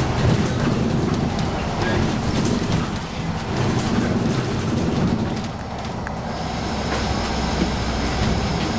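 Cabin noise inside a Van Hool AGG300 articulated bus: the steady low rumble of the engine and drivetrain with scattered rattles and clicks from the body. About six seconds in, a faint steady high whine starts.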